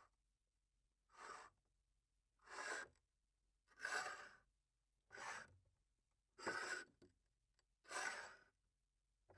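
Glass cup slid across a tabletop six times in short scraping strokes, each about half a second long, roughly one every 1.3 seconds.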